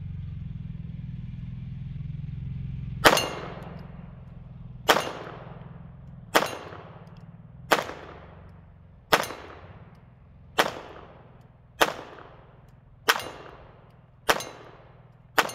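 Ten shots from a Ruger SR22 .22 LR semi-automatic pistol firing Aguila Super Max hyper-velocity rounds. They come in a slow, steady string about a second and a half apart, starting about three seconds in, and each crack is followed by a ringing tail.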